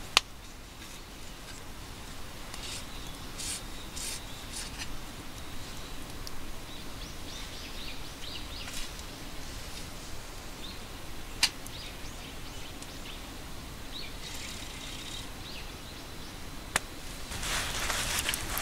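Quiet woodland ambience with scattered short bird chirps, broken by a few sharp clicks and a louder rustling near the end.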